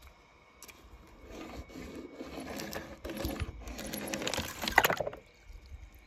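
Small die-cast toy car rolled across a sheet of paper in several strokes, its wheels rattling and the paper crinkling under it, loudest near the end of the strokes.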